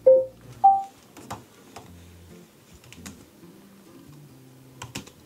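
Typing on a computer keyboard: a few scattered keystrokes over soft background music. Two short tones, the second higher, open it and are the loudest sounds.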